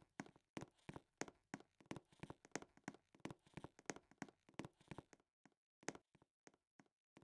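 A rapid series of faint sharp taps, about three to four a second, becoming sparser after about five seconds.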